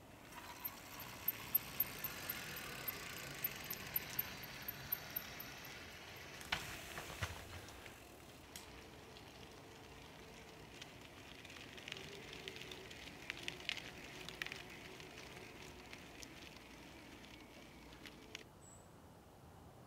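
Propain Ekano 2 CF electric mountain bike riding down a rock slab: tyres rolling over rock and grit, with rattling and sharp clicks from the bike, in two clusters, the first in the opening seconds and the second about two-thirds through.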